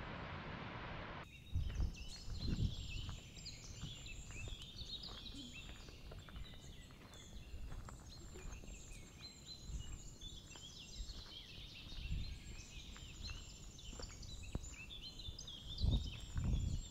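Small birds singing and chirping, many at once, in a dense chorus of short trills and calls. A steady rush of falling water is heard at first and cuts off about a second in. There are low rumbles now and then, near the start and again near the end.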